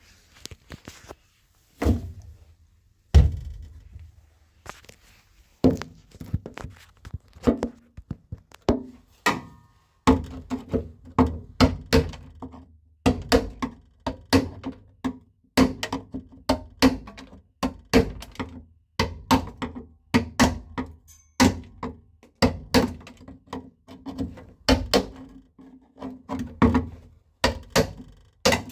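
Hammer driving a screwdriver against a steel car floor pan to chip off old sound deadening. Scattered knocks give way, about a third of the way in, to steady blows roughly one to two a second, each with a short low ring from the panel.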